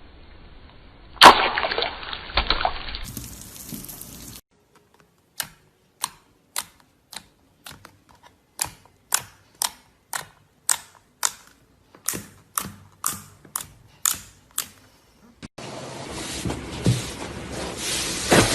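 Crunchy slime being squeezed and pressed: a spell of crackling crunches, then a run of sharp separate pops about two a second, then dense crackling again near the end.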